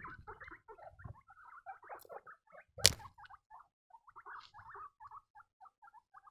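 Baby guinea pigs squeaking in a quick run of short, high peeps, with a single loud bump about three seconds in.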